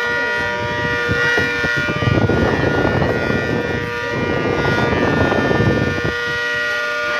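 Outdoor tornado warning siren sounding a steady, unwavering tone with several pitches stacked together. A burst of rushing noise rises over it from about two to six seconds in.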